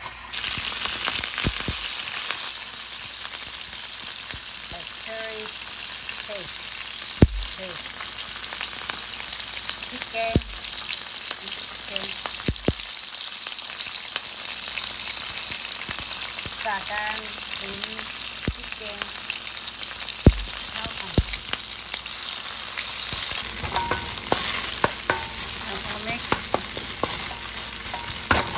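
Lemongrass, garlic and red chili paste sizzling steadily in hot oil in a frying pan. Now and then a wooden spatula knocks against the pan as it is stirred.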